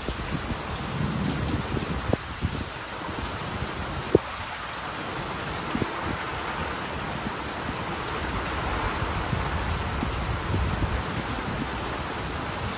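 Heavy thunderstorm rain pouring steadily, with strong wind gusting and a low rumbling underneath. A couple of sharp taps about two and four seconds in.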